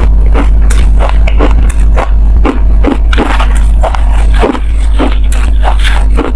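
Shaved ice crunching in a quick run of crisp crunches, about three or four a second, over a steady low hum.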